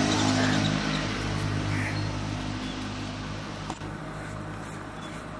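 Electric mixer grinder (mixie) running steadily as it coarsely grinds thoothuvalai (Solanum trilobatum) leaves, loudest in the first second and easing off a little after.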